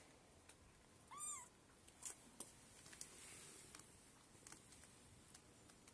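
A kitten almost three weeks old gives one short high mew about a second in, its pitch rising and falling, followed by a few faint clicks.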